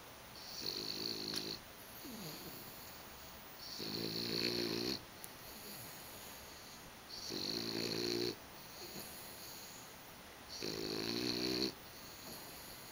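A sleeping pet snoring: four snores in a slow, even rhythm, each about a second long and coming roughly every three seconds.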